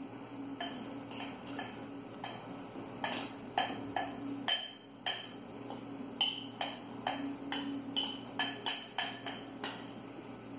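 Glass mixing bowl being tapped and knocked over a blender jar to shake flour out: about two dozen irregular light clinks, each with a brief ring, stopping shortly before the end.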